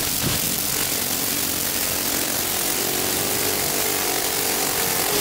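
High-pressure washer jet spraying onto a plastic fidget spinner: a steady, loud hiss of water. From about two seconds in, a faint whine rises slowly in pitch as the spinner speeds up in the jet.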